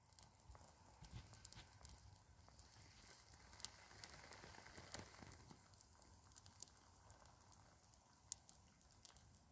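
Faint crackling of a wood campfire's embers, with an occasional sharp pop, very quiet overall.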